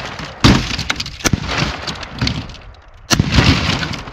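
IMI 5.56 NATO M855 62-grain steel-core rifle bullets striking a concrete block: a run of sharp cracks, the loudest about half a second in, just past a second and just after three seconds, as the block breaks apart and pieces fall onto the table.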